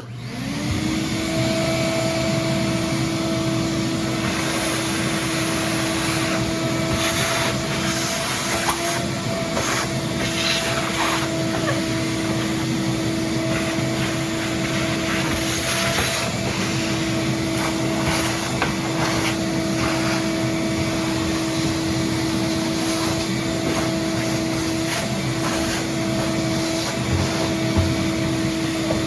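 Vacuum cleaner switched on, its motor spinning up within about a second and then running at a steady pitch, with scattered small clicks and rattles as it sucks up dirt.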